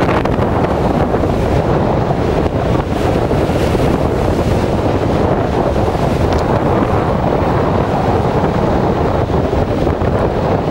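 Strong wind buffeting the camera's microphone, giving a loud, steady, churning rumble. Choppy sea surf is mixed in beneath it.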